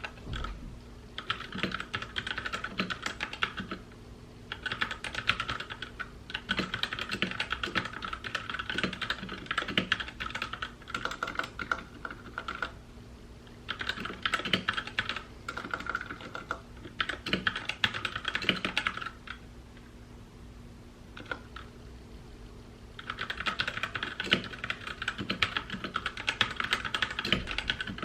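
Typing on a mechanical keyboard: fast runs of key clicks lasting a few seconds each, with short pauses between them.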